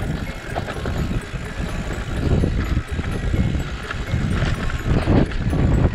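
Mountain bike descending a rough downhill trail: the tyres, chain and frame clatter with dense, irregular knocks over a steady rumble.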